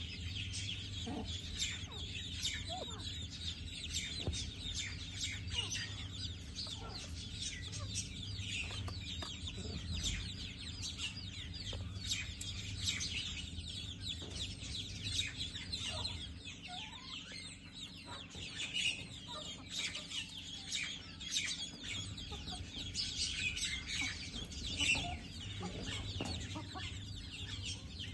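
Birds calling continuously with many short, rapid high-pitched chirps and squawks over a low steady hum.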